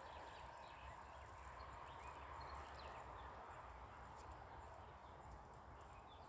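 Near silence: faint, steady outdoor background with a few faint bird chirps and some light ticks.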